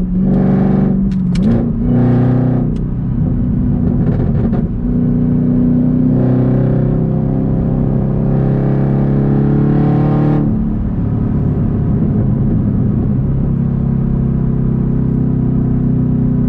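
2022 Camaro ZL1's supercharged 6.2-litre V8 through an H-pipe cat-back exhaust, heard from inside the cabin while driving. The engine note rises near the start and is pulling harder until about ten seconds in, then settles into a steady drone.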